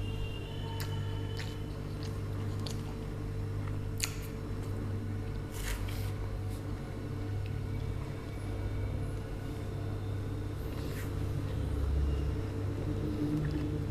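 A person eating close to the microphone: wet chewing and biting, with scattered sharp clicks, over a steady low hum.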